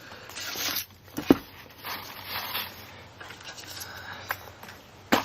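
Handling noise from rummaging in a box of packing peanuts and turning over a fire alarm device: light rustling and scraping, with a sharp knock about a second in and a click near the end.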